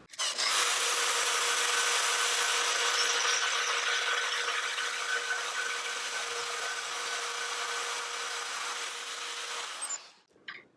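FEIN magnetic drill running, its bit cutting slowly through steel tubing while the drill works sideways: a steady motor tone under a harsh, continuous cutting noise that stops abruptly about ten seconds in.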